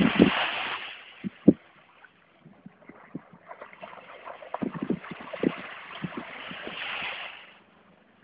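Strong wind gusting on the microphone, with scattered low knocks. It dies down about a second in and picks up again from about three and a half seconds until shortly before the end.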